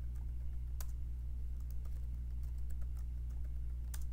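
Keystrokes on a computer keyboard: scattered, irregular key clicks, with one sharper click about a second in and another near the end, over a steady low hum.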